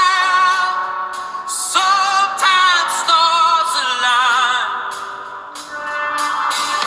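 Background music with a singing voice, operatic in style, held notes wavering with vibrato.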